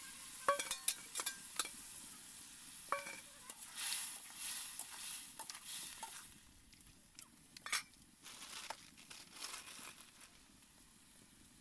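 Small fish frying in oil and masala in a metal kadai, with a steady sizzle that dies down about six seconds in. A spoon clinks and scrapes against a steel bowl and the pan as the fish are stirred, one knock ringing briefly about three seconds in.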